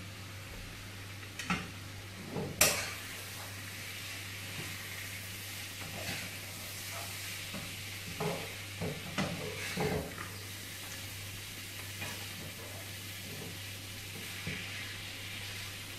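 Chopped vegetables sizzling as they stir-fry in a pan on a gas stove, with a metal spatula scraping and knocking against the pan every so often; the loudest knock comes about two and a half seconds in, and several follow close together in the middle.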